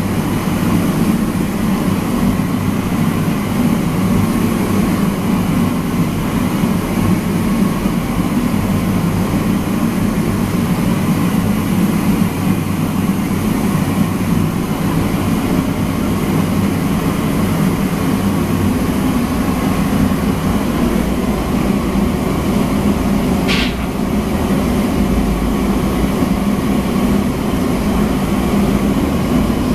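Steady, loud, low rumble of running machinery, with a single short click about three-quarters of the way through.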